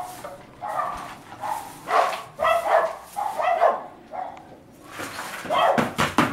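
Dogs barking repeatedly in short calls, with a few sharp knocks near the end.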